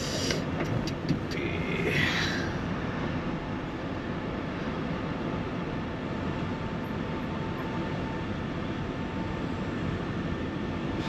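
Steady engine and tyre noise inside a van's cabin as it drives slowly over block paving, with a few sharp clicks in the first second and a short falling squeal about two seconds in.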